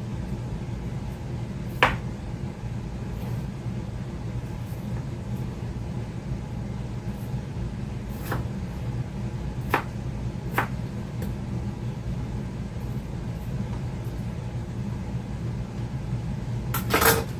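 A kitchen knife knocking a few times on a cutting board as potatoes are diced, with a short clatter near the end, over a steady low hum.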